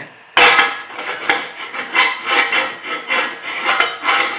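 A ceramic frying pan set down with a clank on a Primus Eta Power stove, then scraped back and forth over its metal pot supports in repeated rubbing strokes, a few a second.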